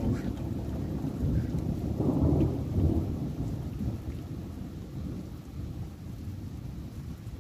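Thunder rumbling, swelling to its loudest about two to three seconds in, then slowly fading away.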